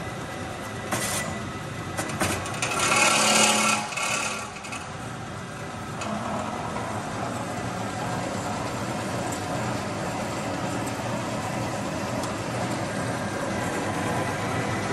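Peerless 9" x 16" horizontal bandsaw running without a cut, its motor and blade drive giving a steady mechanical hum. A louder rattling, hissing stretch comes about three to four seconds in.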